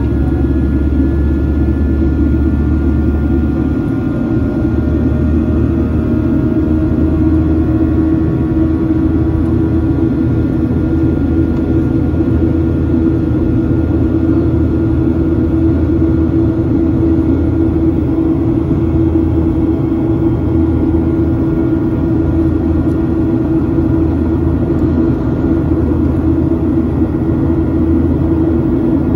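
Cabin noise aboard a Boeing 737-800 in its climb after takeoff: the steady, loud rumble and hum of its CFM56 turbofan engines and airflow, with faint tones above it that drift slowly in pitch.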